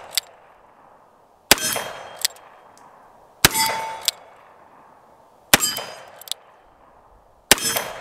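EAA Windicator .38 Special revolver with a 4-inch barrel fired four times, about two seconds apart. Each shot dies away over about a second, and a short click follows most of them.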